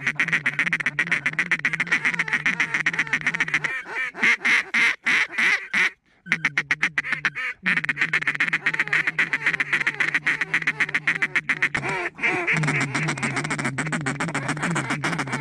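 Duck calls blown by several hunters in a fast, nearly continuous chatter of short quacking notes, broken by brief pauses about four to seven seconds in.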